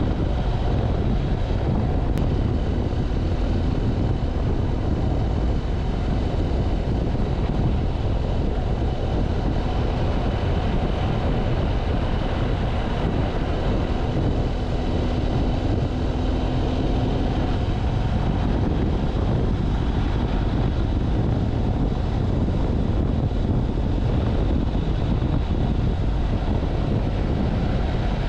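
BMW F700GS's parallel-twin engine running steadily at road speed, under a constant rush of wind on the microphone.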